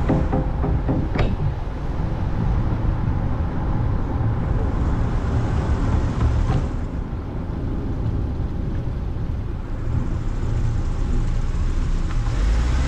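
Open-top Moke car driving, a steady rumble of engine, tyres and wind. A short sharp click comes about a second in.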